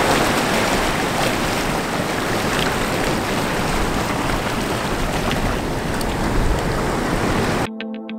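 Ocean surf washing in and out around shoreline rocks, a steady hiss with low rumble and some wind buffeting the microphone. It cuts off suddenly near the end, where electronic music with a steady beat starts.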